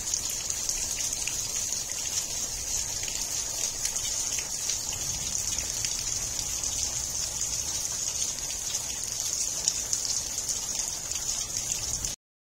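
Steady monsoon rain falling through trees, a dense hiss flecked with many small drop patters; it cuts off suddenly near the end.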